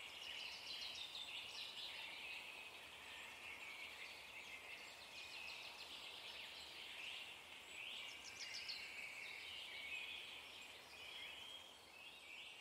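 Faint, continuous twittering and chirping of small forest birds, with a quick run of rapid repeated notes about eight seconds in.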